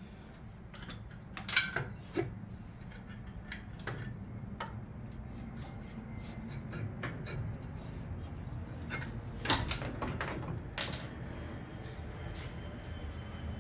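Hand tools and metal parts clinking and clanking while a Chevy 350 V8 engine is being taken apart. The clicks are scattered and irregular, with louder clanks about a second and a half in and twice more around ten seconds in.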